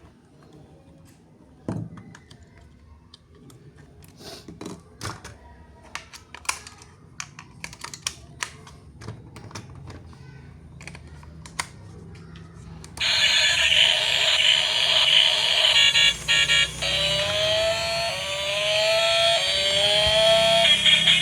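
Light clicks and taps of toys and packaging being handled. About 13 seconds in, a battery-powered toy switches on and plays a loud, tinny electronic tune through its small speaker, with a string of quick rising chirps near the end.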